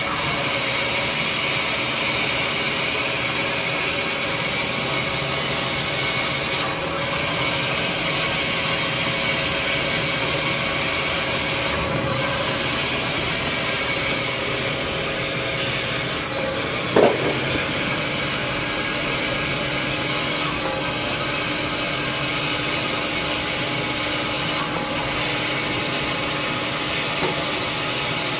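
Band-saw log cutter of a small toilet paper making machine running steadily, its motor and band blade giving a constant mechanical hum with high steady tones. A brief sharp squeak sounds once, a little past the middle.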